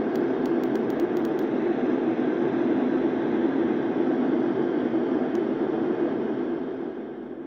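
Yogasleep Rohm white noise machine playing a steady, deep rushing noise that fades out near the end.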